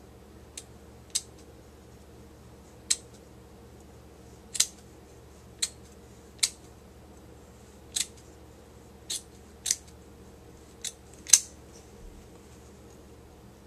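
Scissors snipping through the backing of faux fur fabric: about eleven short, sharp snips at uneven intervals, roughly one a second, the loudest near the end.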